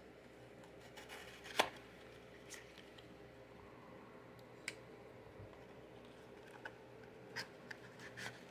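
Knife blade slitting the seal of a small paperboard box, faint scraping of blade on card with one sharp click about one and a half seconds in. A few light ticks and rustles follow as the box's end flap is pried open near the end.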